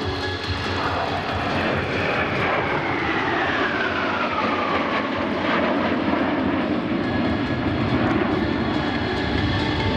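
Jet noise of a formation of four Sukhoi Su-35S fighters flying past. A high engine whine falls steadily in pitch from about two to five seconds in as the formation passes, and the deep rumble grows louder toward the end.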